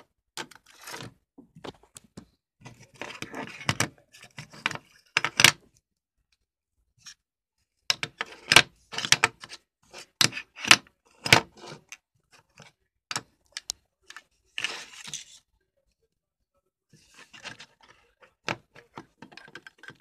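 Metal Zippo lighters being picked up, moved about and set down on a table: bunches of sharp clicks and clinks with short scrapes in between and brief pauses.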